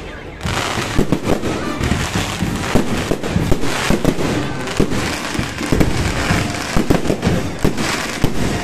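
Aerial fireworks display going off in a dense, rapid barrage of bangs and pops, picking up about half a second in and continuing without a break.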